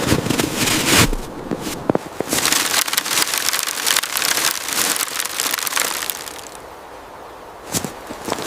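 Irregular crunching and crackling with sharp snaps, as a piece of wood is worked and forced into place in snow. It eases off near the end, then snaps again.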